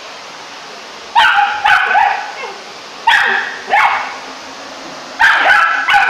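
Rough collie puppy barking at a running vacuum cleaner: about seven sharp barks in clusters of two or three, starting about a second in, over the vacuum's steady hiss.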